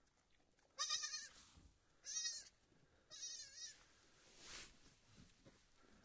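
Young lamb bleating three times, each a short, high, quavering call about a second apart.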